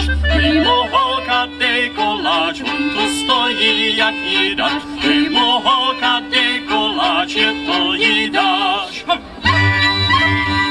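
Czech folk band playing live: a woman sings a wavering melody over fiddles and a steady held low note. The music changes about nine and a half seconds in.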